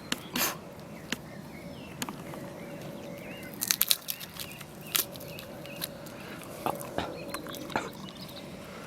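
A person biting, tearing and chewing raw rabbit meat and skin: scattered wet clicks and crackles, with a quick cluster of them a little under four seconds in.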